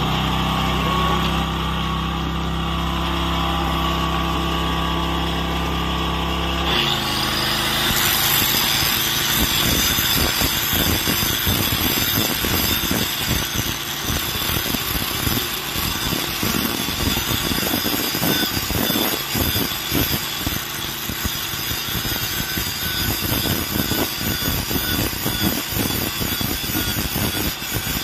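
A steady engine hum for the first several seconds. Then, about seven seconds in, an electric angle grinder starts grinding a steel joggled fish plate, a rough noise that wavers as the disc is pressed on. The grinding takes down the shiny wear marks found on the plate during inspection.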